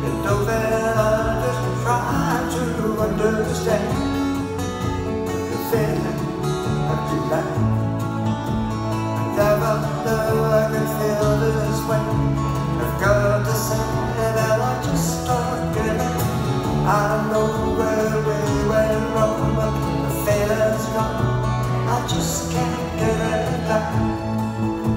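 Live band playing a slow folk-pop ballad: strummed acoustic guitars over electric bass, keyboard and drums.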